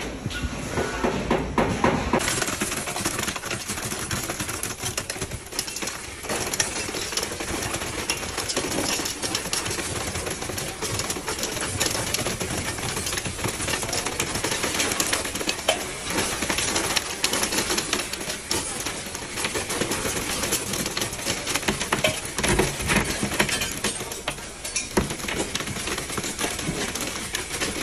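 Wet concrete discharging from a concrete pump's ribbed delivery hose into stair formwork: a continuous, dense clattering and splattering.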